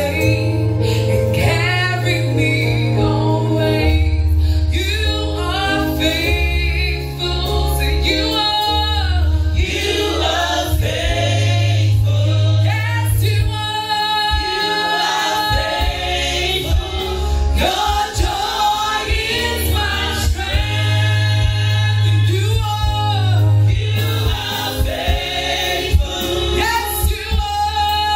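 Women's gospel choir singing a worship song, a lead voice with backing singers joining in, over instrumental accompaniment with long held bass notes.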